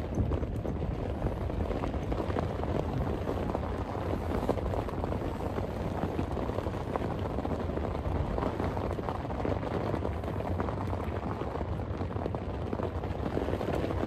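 Steady heavy rain with wind: a dense patter of drops over a low rumble.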